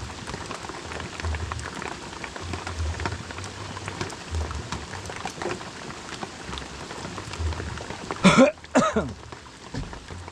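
Heavy rain falling, many drops pattering steadily. Near the end come two brief loud sounds about half a second apart, like a person's voice or cough.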